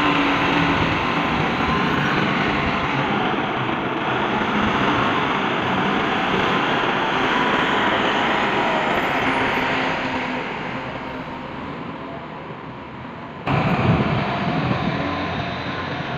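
Steady noise of heavy construction machinery running, easing off somewhat, then cut abruptly to a louder, rougher machine sound about three-quarters of the way through.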